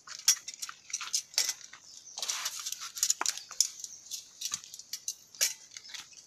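Footsteps over rocks and dry leaves, with irregular crunches, scrapes and light clinks.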